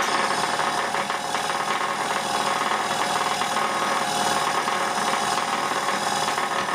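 York compressor running, belt-driven by an electric motor on a variable frequency drive set to about 80 Hz: a steady, even mechanical running noise with several held tones over it.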